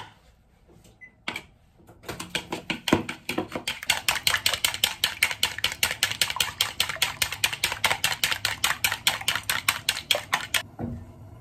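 Raw eggs being beaten with chopsticks in a bowl: a rapid, even clatter of the chopsticks striking the bowl's side, about five strikes a second. It starts about two seconds in and stops shortly before the end.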